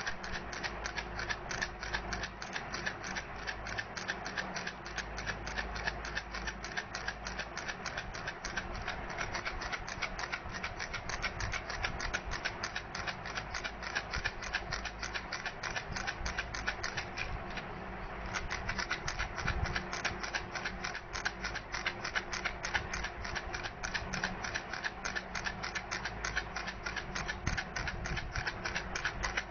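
Baby rattle shaken steadily, giving a rapid, even run of clicks, with a short lull a little before eighteen seconds in.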